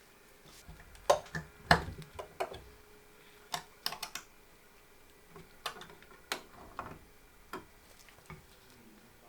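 Irregular sharp clicks and light taps of computer parts being handled and fitted together during PC assembly. The two loudest come about a second in and a little later, followed by scattered small clusters.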